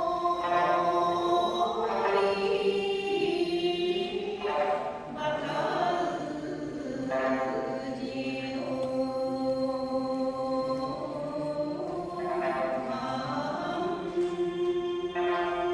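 A group of voices sings a Ryukyuan folk song in unison to sanshin accompaniment, with long held notes that glide from one pitch to the next.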